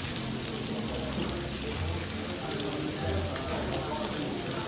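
Open flame burning on a foil-covered tabletop grill tray: a steady sizzling hiss with many fine crackles.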